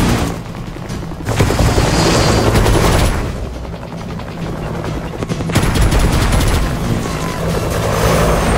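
Action soundtrack music mixed with rapid machine-gun fire, in two loud bursts about a second and five and a half seconds in, with a quieter stretch between.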